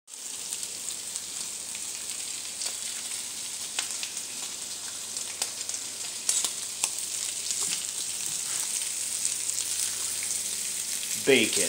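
Bacon strips frying in a metal pan on the stove: a steady sizzling hiss with scattered pops of spattering fat. Near the end a short gliding squeal is the loudest sound.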